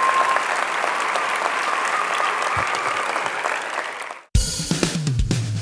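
Large audience applauding, fading out about four seconds in. After a brief gap, music starts suddenly.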